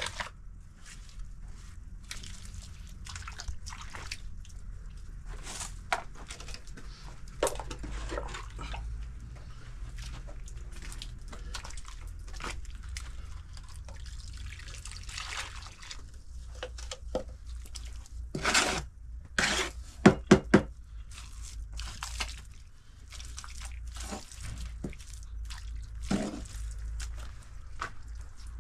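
Water and wet straw-and-mud plaster being worked by hand: irregular drips, splashes and wet slaps over a steady low hum. A run of sharper knocks about 18 to 21 seconds in is the loudest part.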